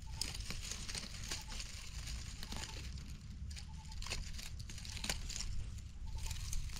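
Dry leaf litter and brush crackling and rustling, with many scattered sharp little snaps and crinkles at an irregular pace.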